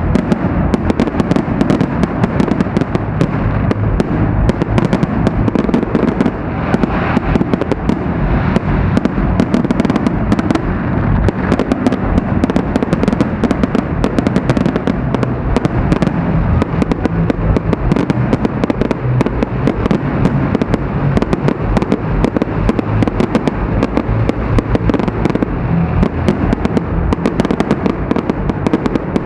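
Fireworks display with shells bursting in a dense, unbroken barrage of sharp bangs and crackles, several a second, heard through an action camera's microphone.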